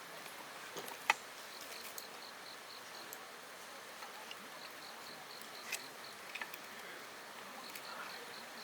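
Insects calling in a forest: a high, pulsed chirping repeating in runs over a steady hiss. A sharp click comes about a second in, and a few fainter ticks follow around six seconds in.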